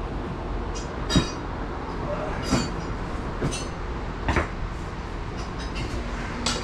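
Several sharp, separate metallic clinks and knocks of hand tools and bolts being handled on a car's front subframe, over a steady background noise.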